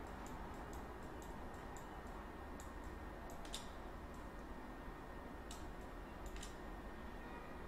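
Computer mouse clicks, a dozen or so at irregular intervals, the sharpest about three and a half seconds in, over a steady low hum and hiss.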